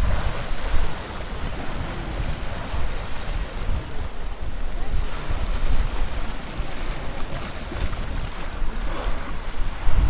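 Small sea waves washing and splashing against concrete shore-protection blocks, with wind rumbling on the microphone.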